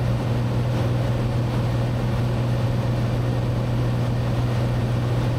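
Cessna 182T's six-cylinder Lycoming IO-540 engine and propeller droning steadily in the cabin in flight, one low constant hum with engine noise above it.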